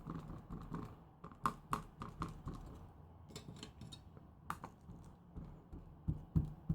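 Mini round ink blending tool dabbing dye ink from an ink pad onto a clear stamp: a quick run of soft, irregular taps, with a few louder knocks among them.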